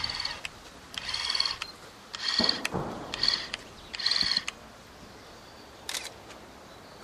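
A small electric motor whining in five short bursts of about half a second each, at a steady high pitch, over the first four and a half seconds. A brief sharp click follows near six seconds.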